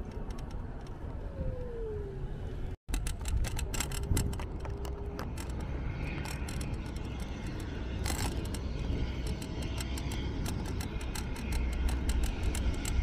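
Road and wind noise from riding an electric scooter: a steady low rumble on the microphone with rapid clicks, and car traffic around it. The sound drops out for an instant about three seconds in.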